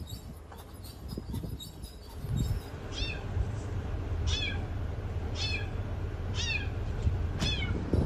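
A cat meowing repeatedly: five short calls about a second apart, each falling in pitch, over a low steady rumble.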